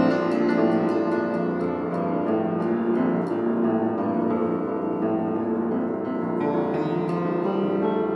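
Piano played four-hands in free improvisation: dense ringing chords in the low and middle range under quick repeated high notes that thin out over the first few seconds.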